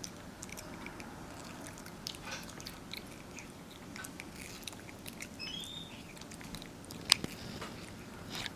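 Capuchin monkey chewing mango, with soft, wet mouth clicks and lip smacking throughout and one sharper click about seven seconds in.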